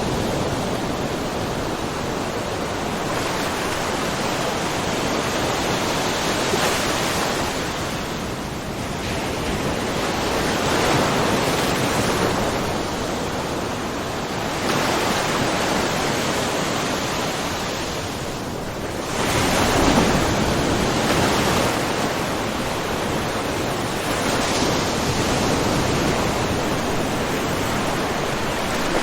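Small ocean waves splashing and washing in a rocky mussel cove: a continuous wash that swells every four to five seconds, with the biggest surge about two-thirds of the way through.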